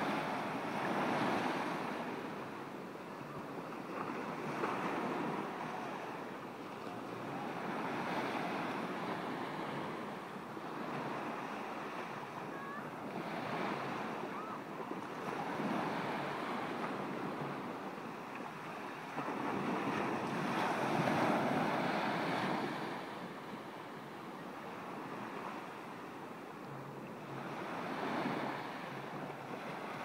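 Small ocean waves breaking and washing up a sandy beach, the surf swelling and fading every few seconds, loudest about two-thirds of the way through.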